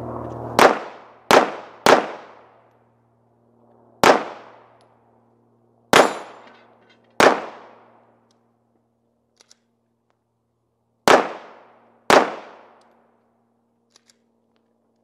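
Eight pistol shots at uneven spacing, some a second or less apart and others several seconds apart, each ringing out with a long echo that dies away over about a second.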